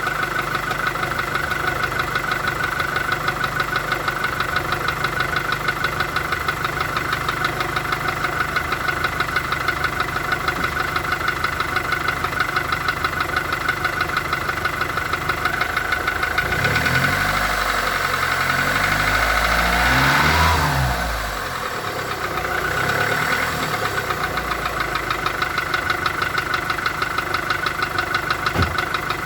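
Volkswagen Golf IV 1.4 16V four-cylinder petrol engine running with a fast, even knock in time with the engine, the fault being shown. It idles, is revved up and falls back once about two-thirds of the way through with a smaller rise just after, then settles back to idle.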